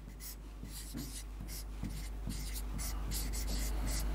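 Pen strokes scratching across an interactive whiteboard as a word is handwritten, several short strokes a second. Under them runs a low steady electrical hum.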